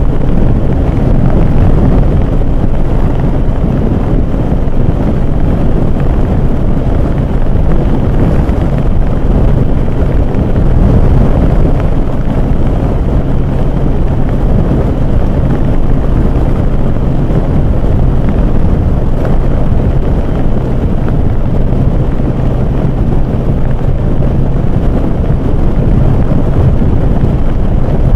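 Wind buffeting the microphone at highway speed over the steady drone of a Yamaha XJR1200's air-cooled inline-four, held at one engine speed without revving.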